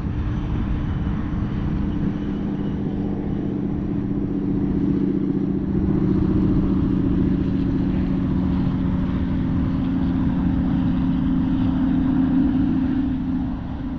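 A steady engine drone with a low, even hum; it grows louder through the middle and fades near the end.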